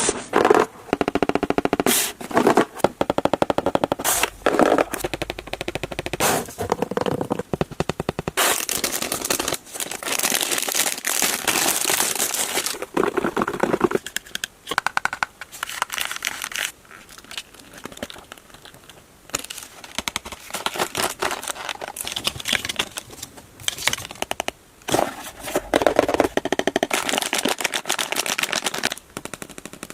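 Toy-box packaging being opened close to the microphone: rapid crackling and clicking of plastic wrap, with stretches of rustling and tearing.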